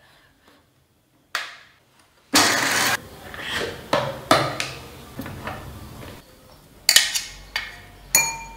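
Stainless-steel jar of a Panasonic mixer grinder: a brief loud burst of steady noise about two seconds in, then the lid and jar clink and knock as they are handled. A spoon scrapes and taps against the steel jar, with one ringing strike near the end.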